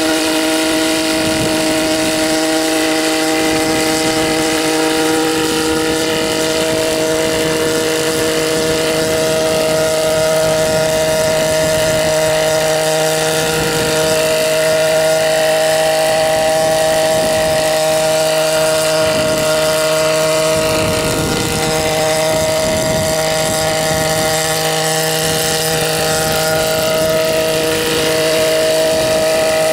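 Helipse HE 300 unmanned helicopter in flight: its 121.6 cc two-stroke engine and rotors running steadily, a continuous pitched drone whose pitch shifts slightly now and then.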